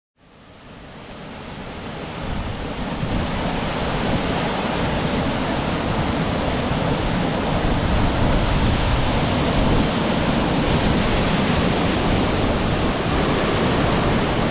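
Steady rushing outdoor noise that fades in over the first two or three seconds, with low uneven buffeting typical of wind on the microphone.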